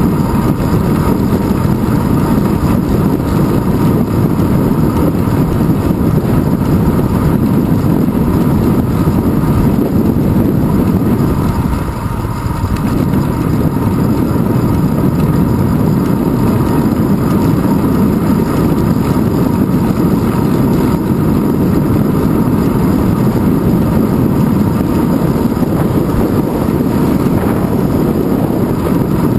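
Steady wind rush and road rumble picked up by a handlebar-mounted GoPro Hero 2 in its housing as the bicycle rolls along a paved road, with a faint steady hum above it. The noise eases briefly about twelve seconds in.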